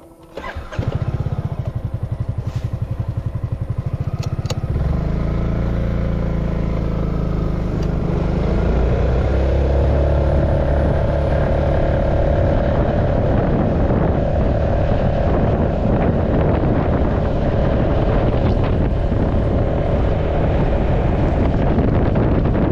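A small engine starts just under a second in and runs with a fast, even pulse. A little under five seconds in it revs up and gets louder, then runs steadily under load.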